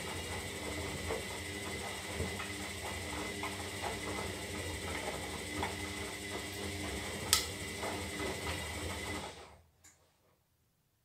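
Zanussi Lindo 300 washing machine running its synthetic wash cycle: a steady motor hum with irregular light clicks and knocks, and one sharp click about seven seconds in. About nine seconds in, the machine stops and the sound dies away to near silence.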